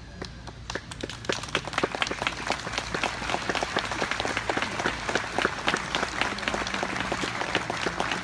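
A large crowd applauding, the clapping starting about a second in and swelling to a steady, dense applause.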